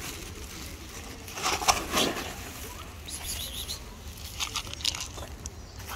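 Thin plastic bag crinkling and rustling in short bursts as a cat pushes its head into it. The loudest rustle comes about one and a half to two seconds in, with smaller crackles later.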